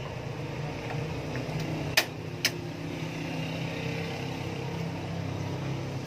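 Steady low mechanical hum, with two sharp clicks about half a second apart around two seconds in.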